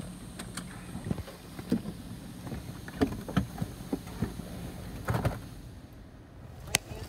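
A car idling, with scattered clicks and knocks from inside the car and a louder clunk about five seconds in as the driver's door is opened.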